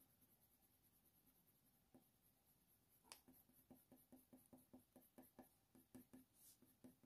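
Faint, quick back-and-forth strokes of a Faber-Castell Polychromos colour pencil shading on hot-press watercolour paper. The strokes start about three seconds in and come about five a second.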